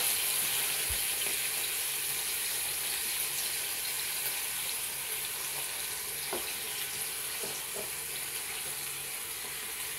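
Bacon-wrapped chicken sizzling inside a closed rotating waffle maker, a steady hiss that slowly fades, as meat juices cook off on the hot plates. A few faint clicks near the end.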